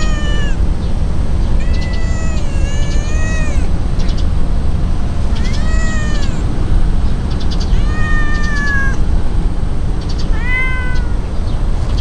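Brown-tabby-and-white cat meowing at close range in a high, cute voice, about five meows, each rising then falling in pitch, the second long and wavering. A steady low rumble runs underneath.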